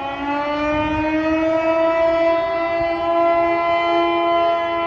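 Outdoor tornado warning sirens wailing, two sirens at slightly different pitches slowly rising and overlapping into a dissonant chord.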